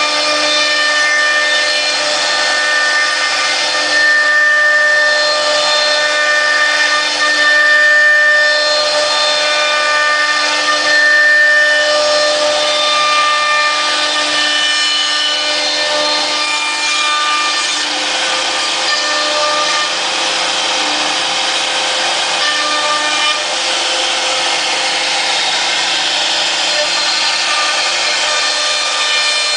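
Wood-cutting CNC router at work: the spindle's steady high whine, several held tones together, over a continuous hiss of the bit cutting wood, swelling a little now and then.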